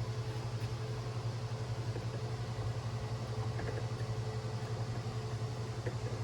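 Steady low machine hum with an even pulsing beat, with a few faint clicks of hand tools being handled.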